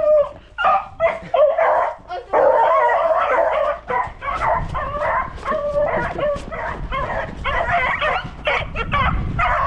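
Three beagles barking and yipping excitedly, their overlapping calls running almost without a pause after the first couple of seconds.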